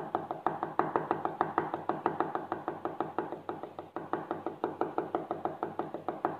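Felt-tip marker tapped rapidly on paper to dab small dots: a quick, even run of light taps, about six a second.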